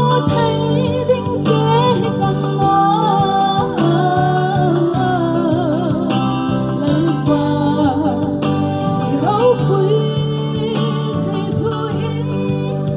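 A woman singing a slow song into a microphone through a PA, over amplified keyboard accompaniment with sustained chords and a steady drum beat.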